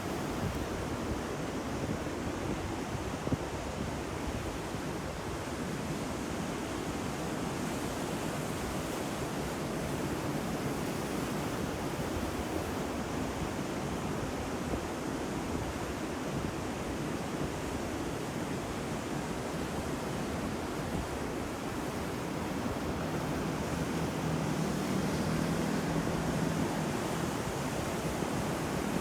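Ocean surf: a continuous wash of waves breaking on the shore, swelling a little near the end.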